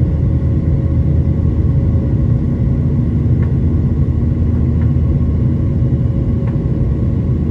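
Boeing 737-900ER's CFM56-7B jet engines running at climb power, a loud, steady low rumble with a faint steady hum on top.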